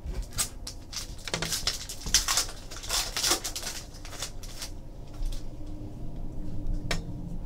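Trading cards and their packaging being handled at close range: a run of rustling, sliding and crinkling for the first few seconds, then quieter handling and one sharp click near the end.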